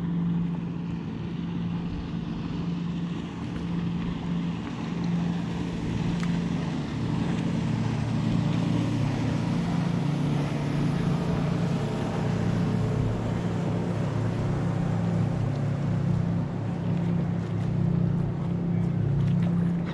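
A boat's engine running with a steady low hum, dropping slightly in pitch and growing a little louder about seven seconds in.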